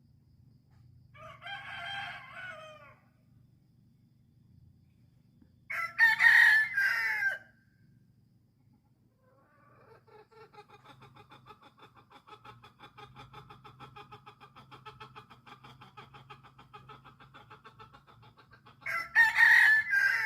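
Roosters crowing: a fainter crow about a second in, a loud crow around six seconds in, and another loud crow at the very end. In between, a chicken gives a long, rapid, rattling cluck-like call lasting about nine seconds.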